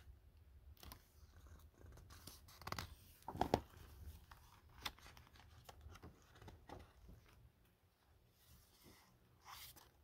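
Faint rustling and brushing of paper as a picture book's pages are turned by hand, with a couple of louder rustles around three seconds in.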